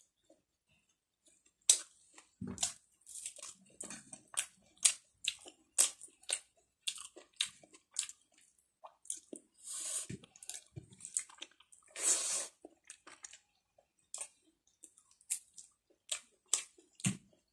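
Close-miked chewing of a mouthful of rice and vegetables eaten by hand: a run of sharp, wet mouth clicks and smacks, two or three a second, with a couple of longer hissing sounds around the middle.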